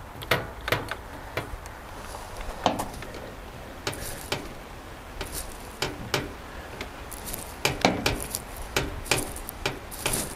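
Hand flaring tool being twisted to press a flare into soft copper tubing, its metal parts giving irregular clicks and clinks, thickest about eight to nine seconds in.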